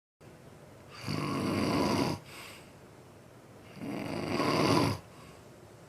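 A sleeping person snoring: two long snores about three seconds apart, each lasting about a second.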